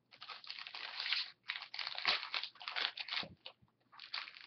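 Foil wrapper of a hockey card pack crinkling and cards rustling as they are pulled out and sorted by hand, in irregular bursts with short pauses.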